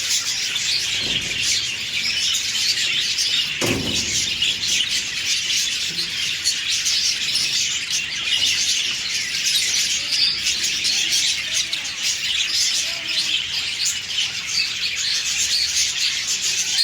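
A crowd of small cage birds chattering and chirping at once, a dense high twittering that never lets up. A single low thump near four seconds in.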